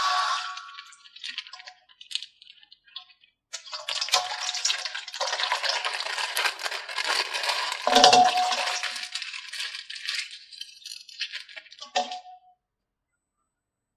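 Plastic packaging and small plastic toy figures being handled: crinkling and rattling, with scattered clicks at first, a dense crackly stretch in the middle and a heavier knock about eight seconds in. It stops abruptly a little after twelve seconds.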